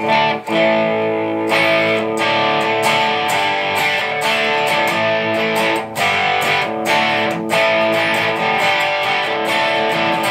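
Ibanez AS63 semi-hollow electric guitar played through an amplifier with an overdriven tone: chords strummed and left ringing, with a few brief breaks between them.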